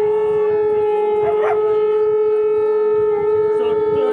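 A loud, steady drone at one held pitch with a stack of overtones. A short wavering sound rises over it about a second and a half in.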